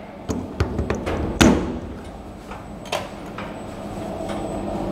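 Metal knocks and clanks of hand tools on a CNC milling machine's vise and table as the vise is locked down: a couple of light clicks, then a loud ringing clank about a second and a half in and another knock near three seconds. A steady low hum builds in the last second.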